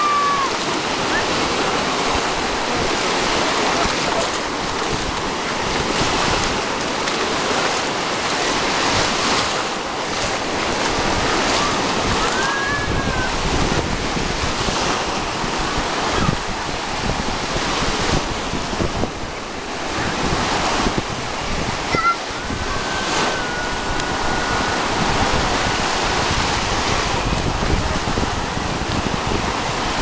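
Black Sea surf breaking and washing over the shallows, a steady rushing wash that swells and eases, with wind buffeting the microphone.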